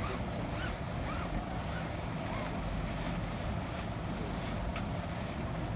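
Wind buffeting the microphone over steady water and boat noise on open water.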